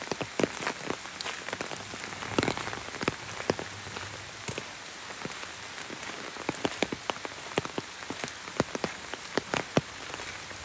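Steady rain: a constant hiss with many separate raindrops ticking close by at irregular intervals.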